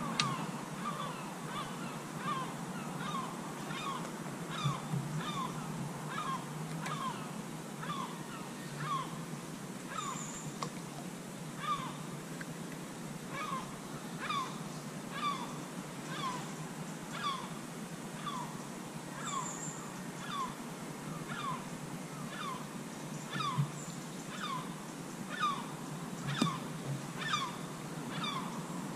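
A bird calling over and over, each short note sliding down in pitch, a little over one a second.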